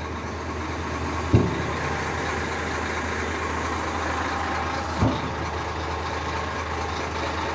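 FAW FD340DT dump truck's diesel engine running steadily with the PTO engaged while the tipper body is lowered. Two short knocks come about a second and a half in and again about five seconds in.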